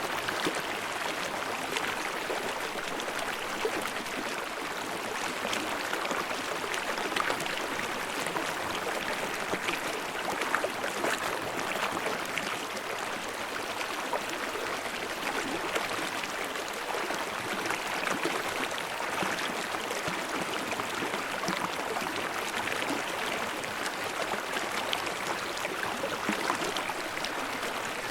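Forest stream babbling and splashing over rocks: a steady, even rush of water with constant small splashes.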